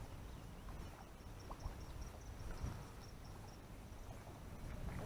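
Faint outdoor background: a low wind rumble with a faint, high, wavering trill that stops about three and a half seconds in.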